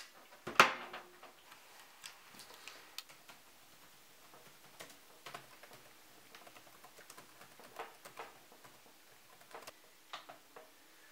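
An ASUS laptop set down on a glass desk with a sharp knock about half a second in, followed by scattered key clicks of typing on its keyboard.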